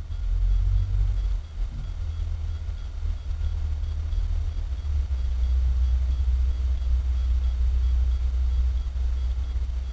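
Heavy machine at work out of sight, giving a steady deep engine rumble that swells and eases a little.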